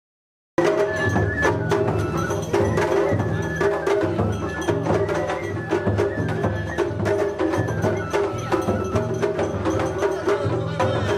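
Japanese festival float music (matsuri-bayashi): drums beating a steady repeating rhythm with sharp percussive strikes and held high melody notes. It starts suddenly about half a second in after a brief silence.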